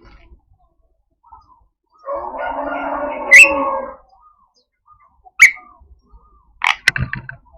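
Javan myna giving harsh, rasping 'cukrek cuekrok' calls: a grating call of about two seconds that ends in a sharp squeak, then single sharp notes and a quick cluster of them near the end.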